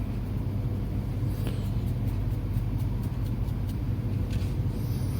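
Steady low rumble of background noise, with a run of faint light clicks in the middle.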